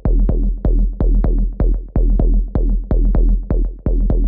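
Electronic dance loop playing from Maschine 2.0: drum-machine hits about three times a second over a heavy synth bass from a Massive patch, in a steady repeating pattern.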